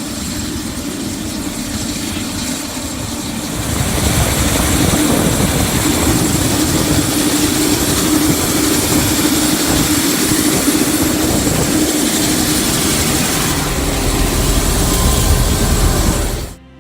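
Helicopter running: a steady loud noise with a held hum, which gets louder about four seconds in and cuts off suddenly near the end.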